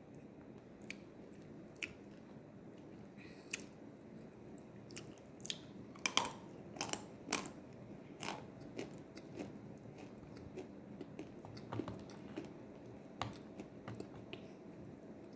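Crunchy nzu (edible clay) being bitten and chewed close to the microphone: a string of sharp, dry crunches, loudest and densest about halfway through, then settling into a steady run of smaller chewing crunches.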